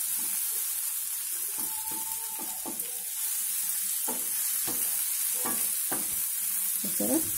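Sliced ivy gourd with onions sizzling in a nonstick frying pan on medium heat, fried dry. A spatula stirs it, giving scattered scrapes and knocks against the pan over a steady hiss.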